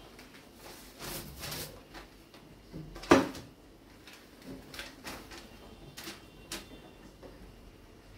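Handling noises: light knocks, clicks and rustling, with one sharp knock about three seconds in.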